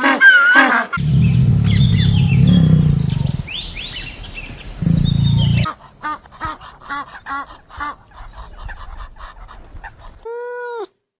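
A series of different animal calls in succession, switching abruptly several times: a noisy low stretch with chirps over it, then a run of short repeated calls, then one short arched call.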